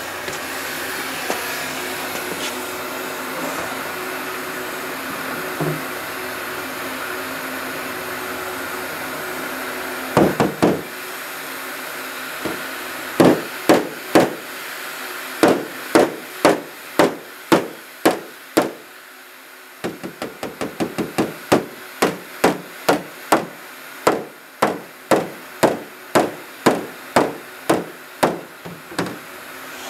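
Heat gun blowing steadily, then dropping away after about ten seconds as a body hammer starts tapping the heated aluminum hood to knock down the dents. The taps are sharp and come one to two a second, with a quick flurry about two-thirds of the way through.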